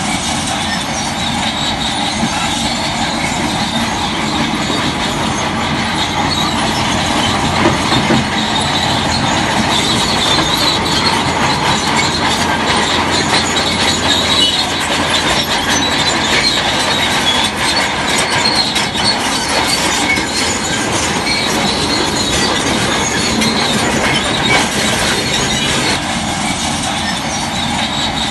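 Shantui DH17C3 crawler bulldozer working, its diesel engine running under load with the steady metallic noise of its steel tracks.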